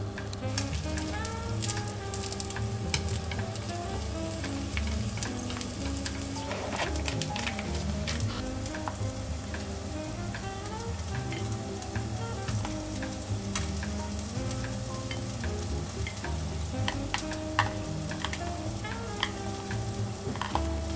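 Salmon pieces and broad beans frying in oil in a frying pan: a steady sizzle with scattered crackles and spits. Soft background music plays underneath.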